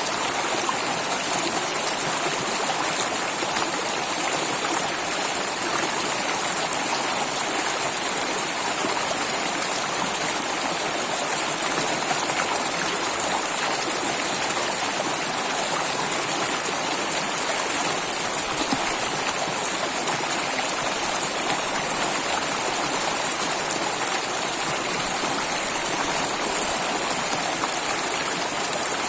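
Flowing water rushing steadily with an even, unchanging hiss.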